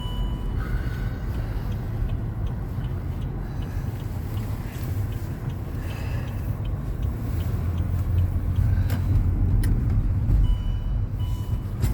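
Steady low road and engine rumble inside a car's cabin, driving on wet roads in the rain. A faint steady electronic tone sounds briefly at the start and again near the end.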